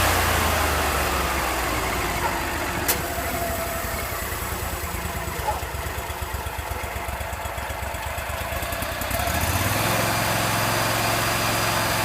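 Rayco 1625 Super Jr stump grinder's engine running; about a second in its pitch falls and it runs lower and quieter, then speeds back up near the end. A single sharp click about three seconds in.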